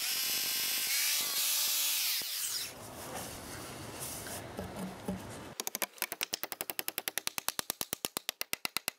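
Hammer drill boring through a timber post into a concrete block, running for about two and a half seconds and then winding down. From a little past halfway, a fast, even run of hammer blows, about eight a second, as a ball peen hammer drives an express nail through the post into the block.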